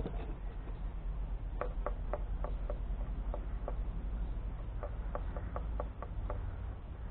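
Light, sharp taps of a wooden stick against the fiberglass hull at a fresh patch: a quick run of about six taps, two more, then a run of about eight.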